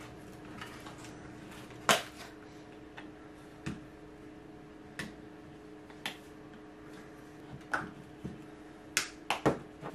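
Scattered sharp plastic clicks and taps as a phone case is pressed and snapped onto an iPhone 14 Pro, about ten in all, the loudest about two seconds in and a quick cluster near the end. A faint steady hum runs underneath.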